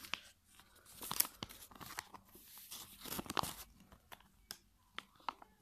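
Faint, intermittent crinkling and clicking of a plastic Happy Meal toy and its wrapper being handled, with a few sharper clicks about a second in and a little past three seconds.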